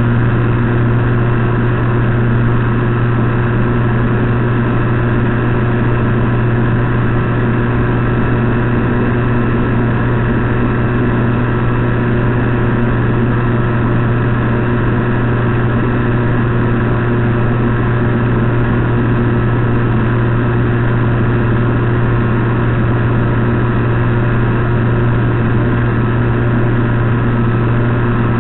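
Steady, unchanging drone of a model plane's electric motor and three-blade propeller, with a strong low hum and several steady tones above it and no highs.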